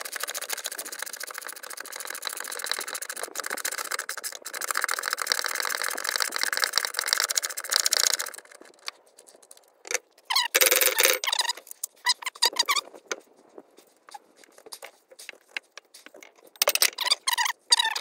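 A 19 mm socket ratchet clicking rapidly as the nut on the old rear shock absorber's mount of a Lada 2107 is run off. For about the last ten seconds it gives way to a few short, louder scrapes and squeaks as the shock is worked free of its mount.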